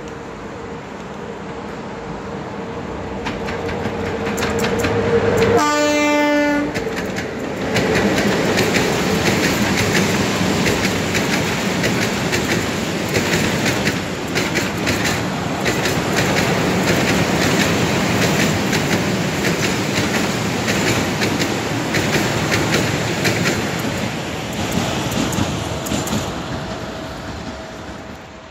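A Romanian class 40 (060-EA) electric locomotive hauling fuel tank wagons approaches, growing louder, and sounds its horn once for about a second around six seconds in. The long train of tank wagons then rolls past with wheels clacking over the rail joints, fading near the end.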